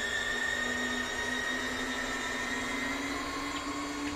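Retractable landing gear of a large RC plane extending, its retract motors whining steadily as the struts swing down, then cutting off abruptly near the end as the gear locks. No chatter from the newly fitted digital nose-steering servo can be heard.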